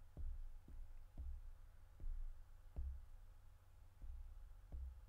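Faint, dull fingertip taps on the Ag Leader Integra display's touchscreen as letters and numbers are typed on its on-screen keyboard, about one tap every half second to second.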